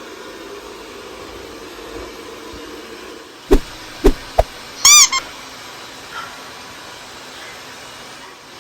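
Robot vacuum cleaner running with a steady hum. Three sharp knocks come about three and a half to four and a half seconds in, followed shortly by one short, high squeak that rises and falls.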